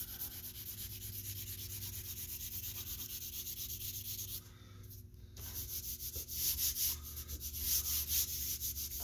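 Vine charcoal scratching on heavy drawing paper in rapid back-and-forth shading strokes. It pauses briefly about halfway through, then returns as louder, more uneven rubbing as the charcoal is worked and smudged into the paper by hand.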